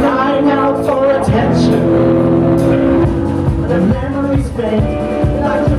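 Live rock band playing through a PA: electric guitars, bass and drums, with a woman singing. Drum hits stand out from about halfway through.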